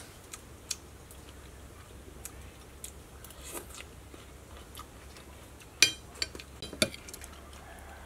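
Metal spoon clicking and scraping against a ceramic plate, with soft chewing between the clicks. The sharpest clinks come about six and seven seconds in.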